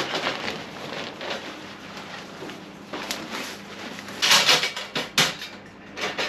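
Foldable fire pit grill being unpacked and handled: rustling and small clicks, with a few louder scraping bursts and knocks about four to five seconds in.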